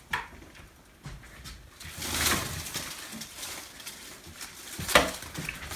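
Rustling and scattered knocks, with a sharp knock about five seconds in.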